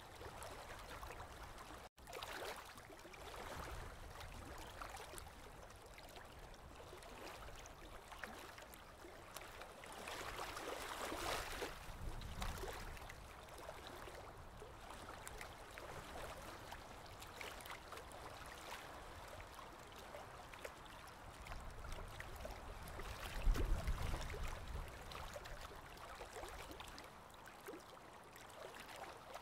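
Aquarium water trickling and gurgling faintly and steadily, swelling for a moment near the middle, with a low thump about three-quarters of the way through.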